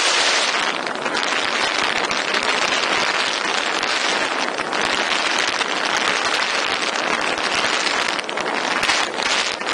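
Rushing wind buffeting the microphone, a loud steady roar of air with no clear engine note, from the fast airflow of a paramotor's spiral descent.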